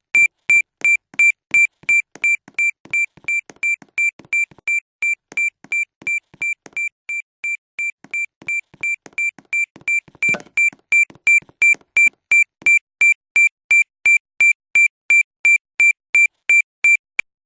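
School fire alarm sounder going off in error, a steady run of high-pitched electronic beeps at about three a second that cuts off abruptly near the end.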